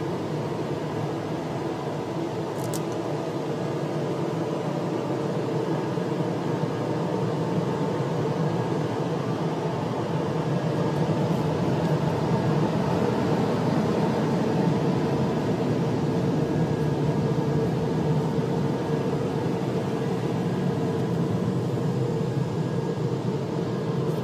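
A steady mechanical drone with several constant humming tones, growing a little louder toward the middle, with one faint high click about three seconds in.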